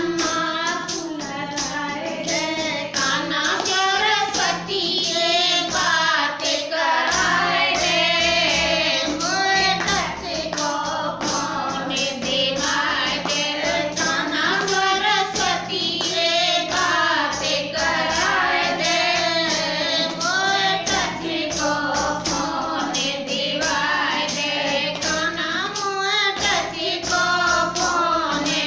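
Women singing a Hindi devotional bhajan together, with a hand-held tambourine struck in a steady beat.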